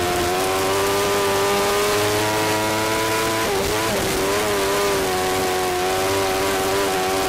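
A 1000cc micro sprint car's engine running at high revs, heard from the cockpit as a steady high-pitched note over wind rush. About halfway through, the pitch briefly dips and wavers, then settles back to the same steady note.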